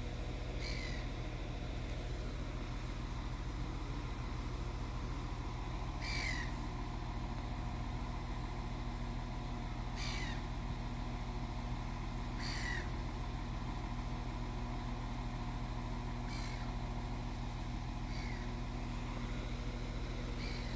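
Steady low hum of a diesel multiple unit idling at the platform, with short, falling bird calls about seven times over it, the loudest about six seconds and twelve seconds in.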